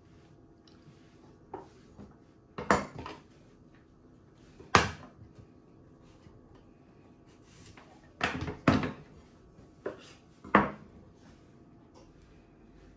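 Kitchen utensils knocking and clattering on a wooden cutting board: a scattering of sharp knocks with quiet between them, the loudest about three and five seconds in and a quick cluster from about eight to eleven seconds in.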